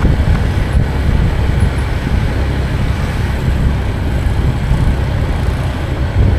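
Steady rumble of a road vehicle on the move, with wind buffeting the microphone.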